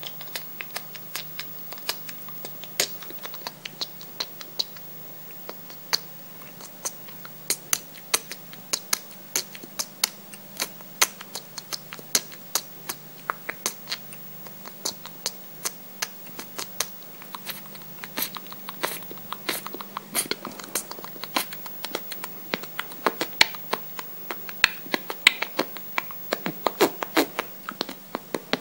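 Mouth sounds: a long, irregular run of sharp clicks and smacks made with the mouth, several a second, growing denser and louder near the end.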